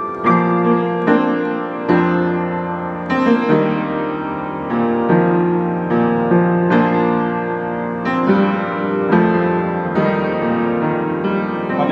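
Upright piano played by hand: a slow passage of chords and melody notes, struck one after another and each left to ring.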